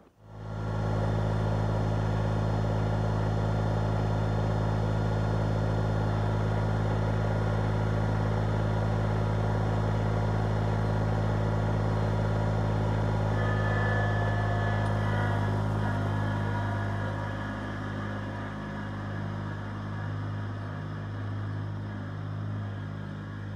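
Sub-compact tractor's engine running steadily, then growing quieter and less even in the last third as the tractor moves away.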